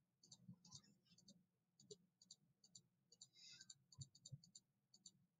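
Near silence: a faint steady hum with a few soft clicks scattered through, the most distinct a pair about four seconds in.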